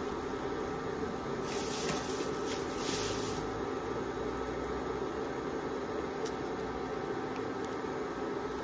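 Steady hum of a kitchen fan over coconut milk heating toward the boil in a non-stick wok, with a burst of hissing from about one and a half to three and a half seconds in.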